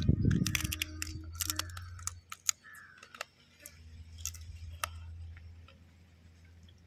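Cooked crab shell being bitten and cracked in the mouth while eating: a string of sharp cracks and clicks, densest in the first three seconds and thinning out after, over a steady low hum.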